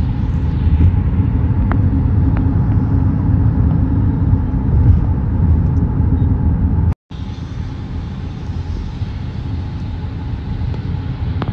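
Road and engine noise inside the cabin of a moving Mahindra XUV700: a steady low rumble. It cuts out for an instant about seven seconds in and carries on a little quieter.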